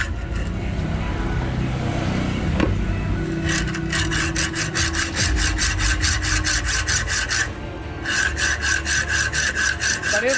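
Hacksaw cutting through a hardened steel concrete nail clamped in a bench vise: fast, regular back-and-forth rasping strokes. The strokes become sharp and even about three and a half seconds in, stop briefly near eight seconds, then carry on.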